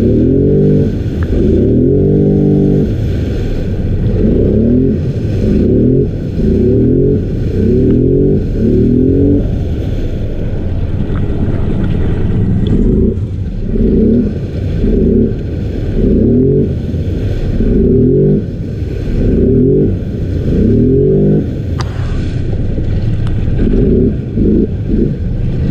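Polaris Sportsman 850 High Lifter ATV's twin-cylinder engine revving up and down about once a second under heavy load as it pushes through deep mud and water, holding steadier for a few seconds midway.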